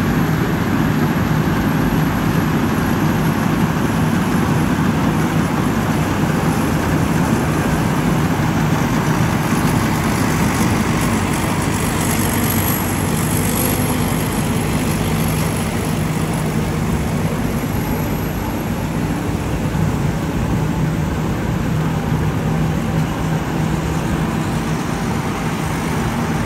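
Rice combine harvesters running while cutting rice: a steady diesel engine drone with the noise of the cutting and threshing machinery.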